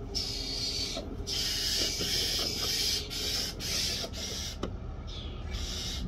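Hot soldering iron sizzling on a lead-coated copper flat-lock seam as it melts in solder, in a string of hissing spells that start and stop, strongest through the first few seconds and fainter near the end.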